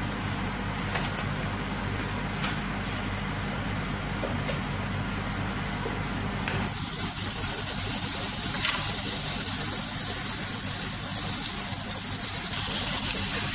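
A steady low hum, then about six and a half seconds in, butter goes into a hot, empty stainless steel pot and starts sizzling, a steady hiss as it melts and foams.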